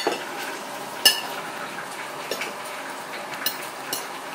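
Dishes and cutlery clinking: one sharp, ringing clink about a second in, then a few lighter clinks.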